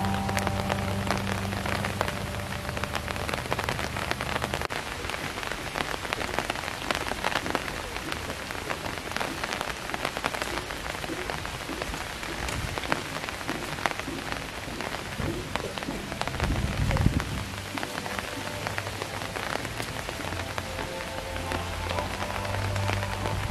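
Steady rain pattering, a dense even patter of drops, with faint music in the first few seconds and again near the end. There is a single low thump about seventeen seconds in.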